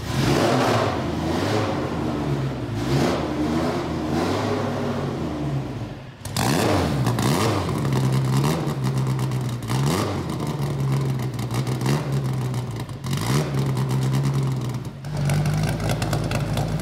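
Race car engine running through a side-exit exhaust, blipped repeatedly so the revs rise and fall several times over a steady idle.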